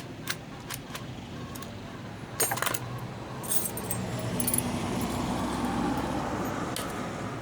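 Loose metal parts clinking and rattling as they are handled: a few sharp clicks, then a louder jangle about two and a half seconds in. A low rumble swells in the second half.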